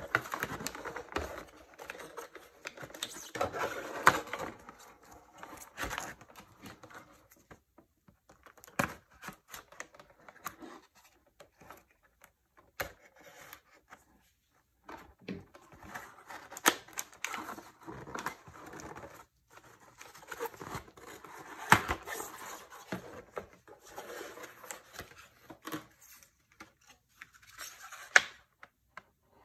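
Unboxing handling noises: cardboard packaging rustling and scraping, with irregular clicks and taps of the plastic salt gun against its box.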